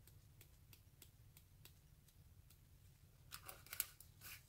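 Faint light clicks, about three a second, as a small glitter jar is tapped to sprinkle glitter onto wet resin, then a louder crinkly rustle for about a second near the end.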